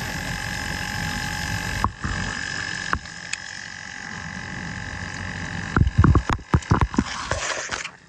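Kenmore dishwasher running, its pump motor giving a steady hum and whine with water rushing, heard from underneath the machine. Near the end there is a quick series of loud knocks and bumps, then the sound cuts off suddenly.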